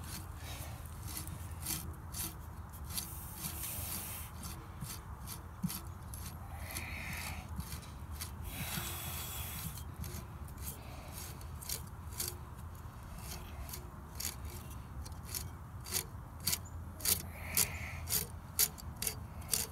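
Hands fitting and turning a pump impeller on its shaft against the housing: metal parts rubbing and scraping, with a quick run of sharp clicks in the last few seconds.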